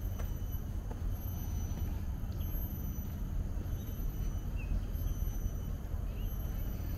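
Open-air ambience during a walk: a steady low rumble with faint thin high tones and a few faint short chirps about halfway through and near the end.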